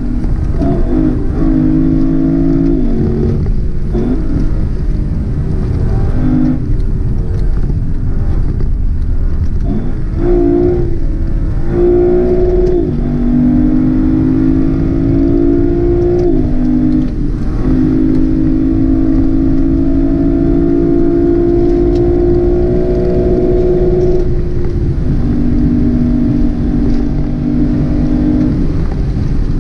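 Lexus LC500's naturally aspirated 5.0-litre V8 accelerating through the gears, its pitch climbing in each gear and dropping at each upshift of the 10-speed automatic, several times, over a steady low rumble of road noise.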